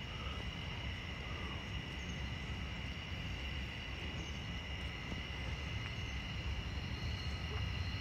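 Insect chorus in the trees: a steady high drone of several held tones, over a constant low rumble.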